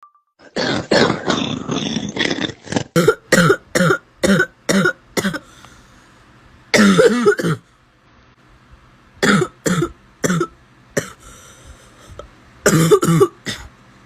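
A person coughing hard in repeated fits of short, harsh coughs, several in quick succession, with a longer strained voiced cough near the middle and brief pauses between the fits.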